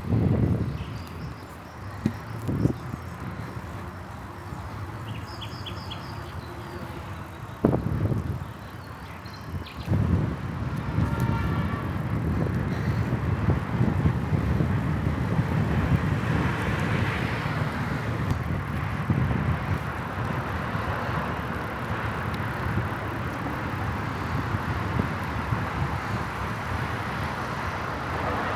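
Wind on the microphone and tyre rumble from a moving bicycle, steady and getting denser from about ten seconds in. A few knocks come in the first ten seconds, and a short high-pitched sound about eleven seconds in.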